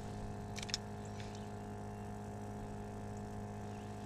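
A steady low mechanical hum with two sharp clicks a little over half a second in, and a fainter click soon after.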